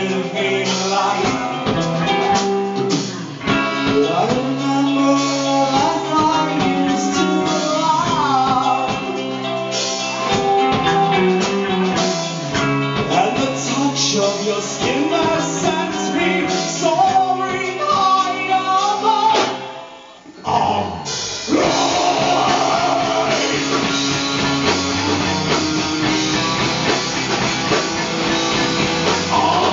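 Rock band playing live: electric guitars, drum kit and a singing voice. About twenty seconds in the music drops out for a moment, then crashes back in as a denser, heavier full-band section.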